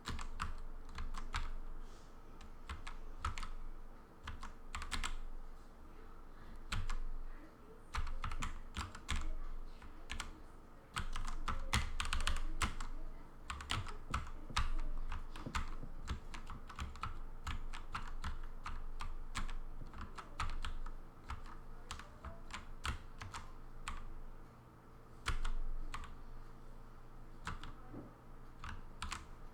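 Stenography chords typed fast on a Redragon K552 mechanical keyboard fitted with 3D-printed flat keycaps and light 15-gram springs: quick, irregular clusters of key clacks, several keys struck together for each stroke.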